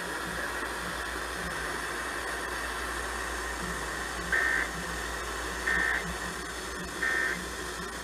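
Weather radio hissing with steady reception static, over which three short bursts of warbling digital data tones sound about a second and a half apart, starting past the middle: the EAS/SAME end-of-message code that closes an emergency alert broadcast.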